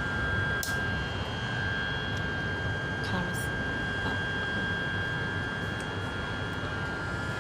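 KTM commuter train carriage in motion: a steady running rumble from the wheels and drive, with a constant high whine over it.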